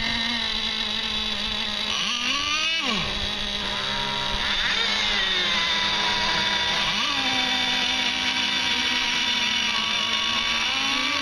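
Several 1/8-scale radio-controlled racing boat engines running at high revs, a layered high-pitched whine whose pitch rises and falls as the boats pass and turn on the course.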